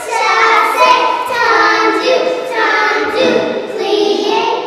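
A small group of young girls singing a song together.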